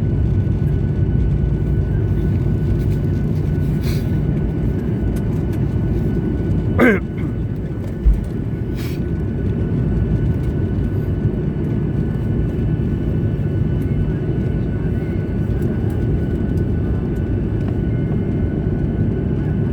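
Steady low rumble of an airliner's cabin during landing, engines and airflow. A brief sweeping whistle comes about seven seconds in, and a short low thump about a second later.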